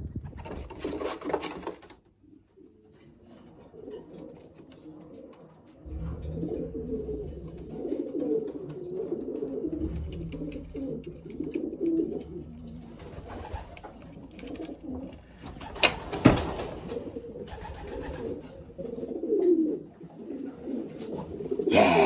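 Racing pigeons cooing close by: repeated low, wavering coos. There is a brief rustle in the first two seconds and a single sharp knock about 16 seconds in.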